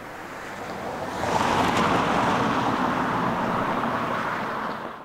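Rushing tyre and engine noise of a road vehicle going by, swelling about a second in, holding steady, then easing near the end.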